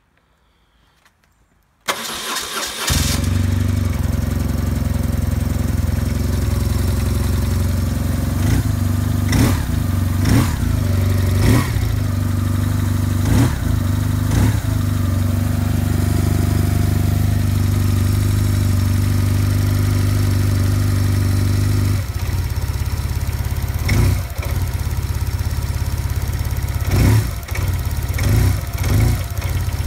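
A vehicle engine cranks and starts about two seconds in, then runs steadily at idle. Short, sharp sounds cut in now and then, and the engine's tone changes about two-thirds of the way through.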